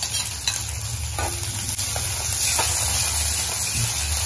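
Chopped onion, tomato and green chillies sizzling in hot oil in an iron kadai, with a metal spatula scraping and knocking against the pan about once a second as they are stirred.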